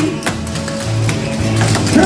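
Clogging shoe taps striking a wooden box stage in quick, rhythmic steps, over a recorded song with a steady beat.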